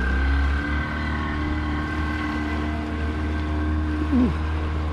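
Small boat's outboard motor running steadily, with wind buffeting the microphone.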